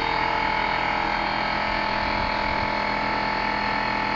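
A steady machine hum made of several constant tones, with no change in level.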